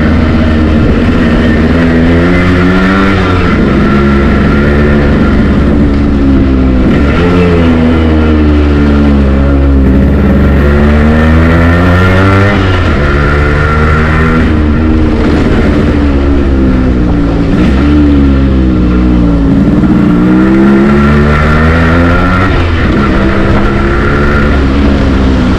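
Yamaha RX100's air-cooled single-cylinder two-stroke engine on the move, its pitch climbing under throttle and dropping back over and over as the bike accelerates, eases off and changes gear. It is loud throughout.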